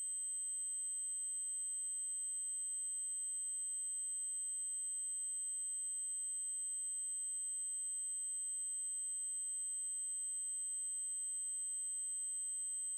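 A steady, very high-pitched electronic test tone: an 8192 Hz triangle wave, unchanging in pitch and level, with faint clicks about four seconds in and again about nine seconds in.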